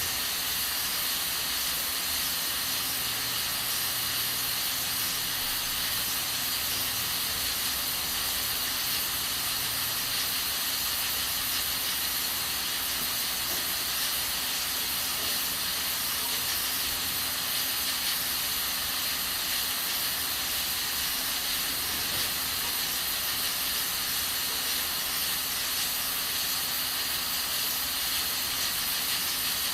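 Aluminium pressure cooker hissing steadily as it vents steam while cooking beans on a gas stove, a constant even hiss with a faint low hum underneath.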